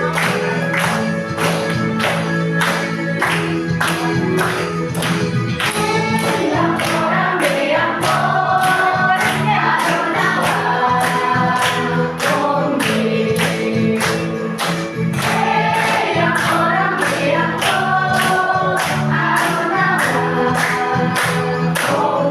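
An ice-breaking song played over a Bluetooth speaker, with a group singing along and a steady beat of hand claps, about two a second.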